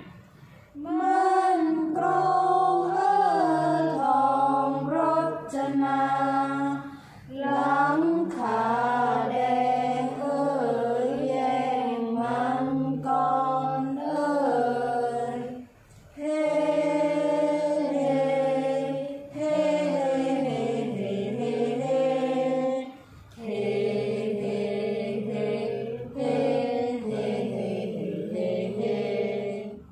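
A group of young voices chanting Thai verse in unison in the melodic style of the royal barge chant (kap he ruea), with long, gliding, drawn-out notes. Four long phrases are sung, each separated by a brief pause for breath.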